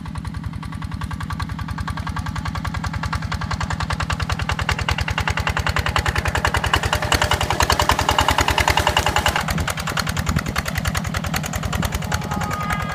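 Two-wheel walk-behind tractor engine running steadily under load while plowing, with a rapid, even firing beat. It grows louder toward the middle and then eases off.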